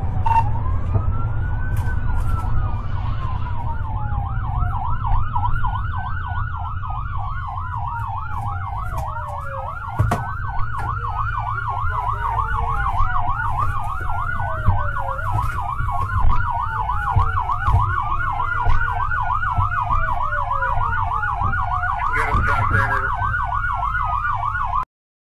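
Two police car sirens sounding together: one on a slow wail that rises and falls every few seconds, the other on a fast yelp that starts about two seconds in. A low steady rumble runs underneath, and everything cuts off abruptly at the very end.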